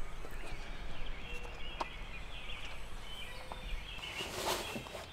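Quiet outdoor ambience with a low rumble, faint bird chirps and a few small clicks. Near the end comes a brief rustle, likely gear being handled at the car's open hatch.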